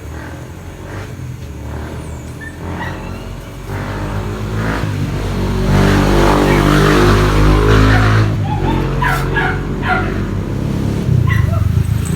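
A motor vehicle engine running nearby, growing louder to a peak about six to eight seconds in and then easing off.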